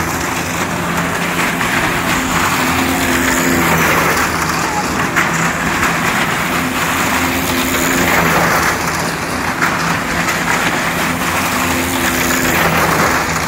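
A car engine running hard as the car circles the wooden wall of a well-of-death drum. The engine note swells and fades every few seconds over a loud, steady rush of noise.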